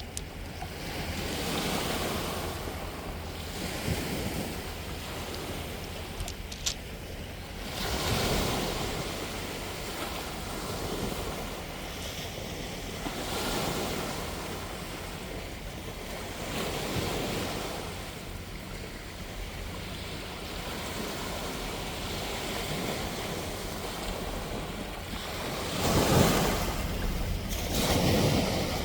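Sea waves breaking and washing ashore, a steady surf that swells and falls back every few seconds, with the biggest surge near the end.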